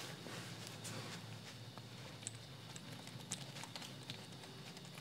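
Rubber motorcycle inner tube being handled by hand: faint rubbing with a few small sharp clicks, over a low steady hum.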